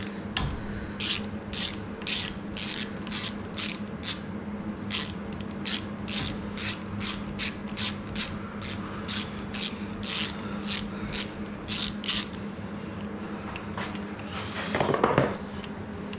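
Ratchet wrench worked back and forth on a bolt: short runs of ratcheting clicks, about two a second, for some twelve seconds before stopping. A louder handling noise follows near the end.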